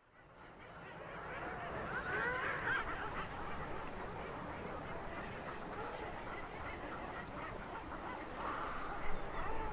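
Guillemot seabird colony calling: a dense chorus of many overlapping harsh, honking calls over a steady background rumble. It fades in at the start and grows louder near the end.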